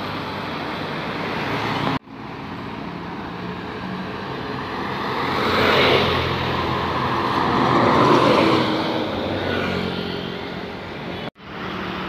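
Road traffic: large diesel tour buses and motorcycles driving past close by, the sound swelling to a peak about halfway through and again a couple of seconds later, over a steady low engine hum. The sound breaks off abruptly twice.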